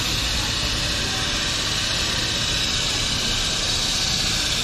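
Steady outdoor city ambience: an even hiss with a low rumble underneath and no distinct events.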